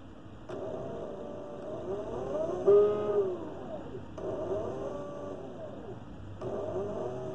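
A 36 V, 350 W hoverboard hub motor driven by an e-bike controller spins up and whines. Its pitch rises and falls about three times as the potentiometer throttle turns the speed up and down.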